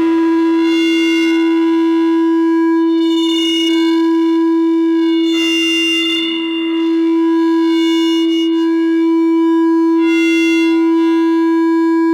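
No-input mixer feedback drone: a loud, steady electronic tone held on one low-mid pitch. Fainter higher overtones fade in and out above it every second or two.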